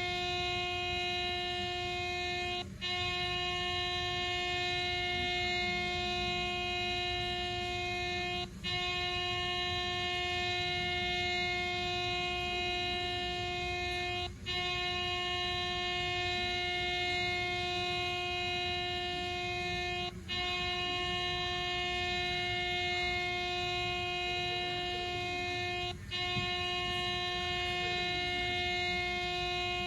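Air horn sounding one continuous steady tone, broken by a brief dip about every six seconds.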